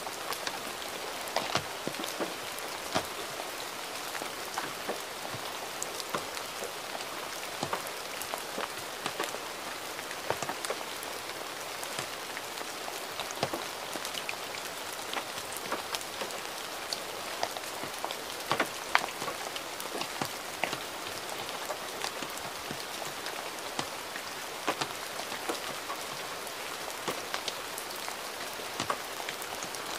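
Gentle rain falling steadily: an even hiss with many separate drops ticking at random, a few of them louder.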